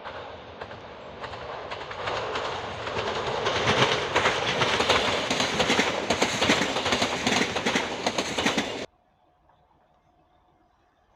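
A train passing close by, its wheels clattering over the rail joints and growing louder to a peak. The sound stops abruptly about nine seconds in, leaving near silence.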